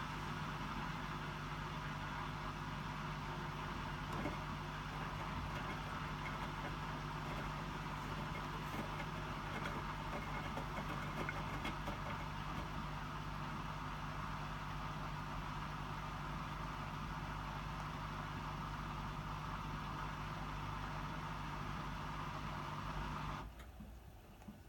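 Hotpoint WMFUG 942 washing machine's drain pump running steadily with a low hum during the distribute drain, with hardly any water left to pump. It cuts off abruptly near the end.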